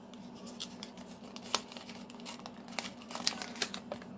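A folded paper warning leaflet being unfolded by hand: faint, scattered paper crinkles and crackles, coming thicker in the second half.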